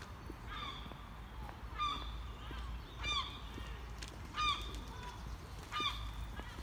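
Geese honking, five calls at a steady pace, about one every second and a half, over a low rumble of wind on the microphone.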